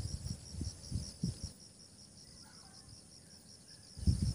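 Insects chirping in a steady, rapidly pulsing high trill, with irregular low rumbles on the microphone during the first second and a half and again near the end.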